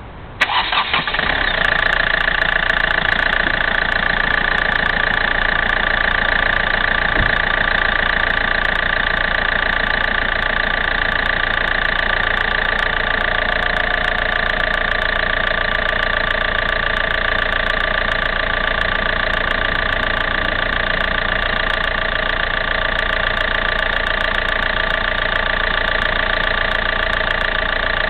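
2007 Hyundai Getz CRDi 16-valve common-rail diesel engine cranking and catching about half a second in, then idling steadily.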